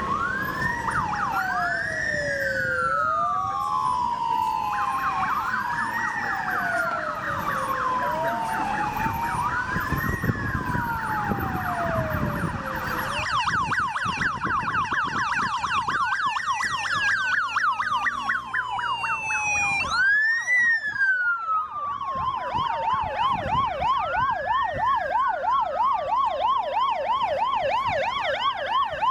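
Sirens of several convoy vehicles sounding together: slow rising-and-falling wails that overlap one another. About halfway through, a fast yelp joins, cycling about three times a second.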